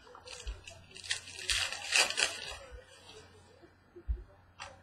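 A fresh pack of trading cards being opened and handled: crinkling and rustling of the pack wrapper and cards sliding against each other, strongest in the first half, with a couple of light taps near the end.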